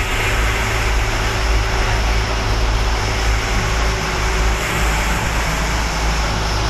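Powercity marine engine running steadily under way on a sea trial: a constant low drone with broad wash noise over it, holding an even speed throughout.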